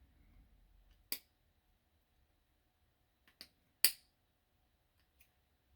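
A few short, sharp clicks from small tools and parts being handled while a car door lock cylinder is taken apart: one about a second in, then a pair just before four seconds, the second the loudest.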